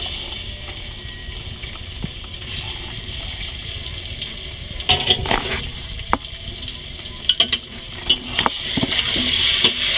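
Raw chicken pieces sizzling in hot oil and fried onions in a metal pot over a full gas flame. A metal spoon knocks and scrapes against the pot several times in the second half.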